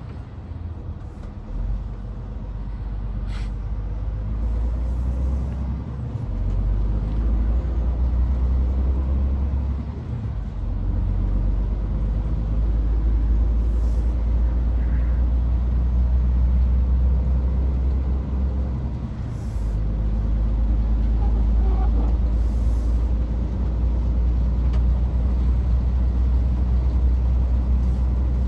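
Scania S500 truck on the move: a steady low engine and road drone that builds over the first few seconds and dips briefly twice. A few short airy hisses sound over it.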